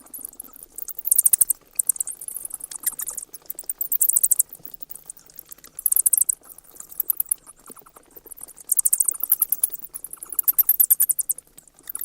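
Bats chittering: bursts of very rapid, high-pitched clicking, each lasting under a second and coming every second or two.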